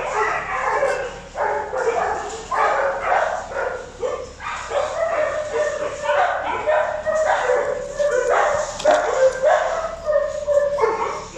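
A dog barking over and over, several short barks a second with brief pauses between runs.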